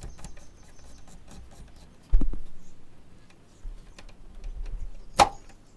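Plastic locking ring of a fuel filter assembly being turned by hand to unlock the filter head from the body: rubbing and small ticks, with a knock about two seconds in and a sharp click near the end.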